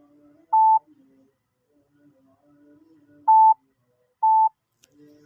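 Morse code practice tone: three short beeps (dits) of one steady pitch, about half a second, three and a quarter, and four and a quarter seconds in.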